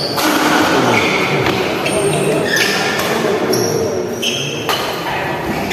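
Badminton rally: sharp cracks of rackets striking a shuttlecock every second or so, ringing in a large hall over a murmur of spectators' voices.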